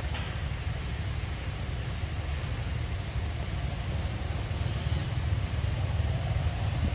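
Steady low outdoor rumble, with a few faint high bird chirps about a second and a half in and again near five seconds.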